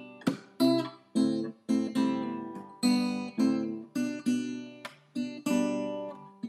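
Background music: an acoustic guitar strumming chords in a steady rhythm, about two strums a second, each ringing out and fading.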